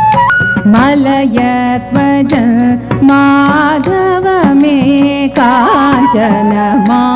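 Carnatic classical music: a kriti in raga Keeravani, with an ornamented melody line of sliding, wavering notes over a steady drone and scattered drum strokes.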